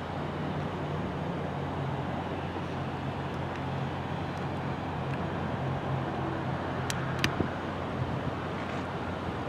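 Steady low outdoor rumble and hiss of background noise, with two sharp clicks close together about seven seconds in.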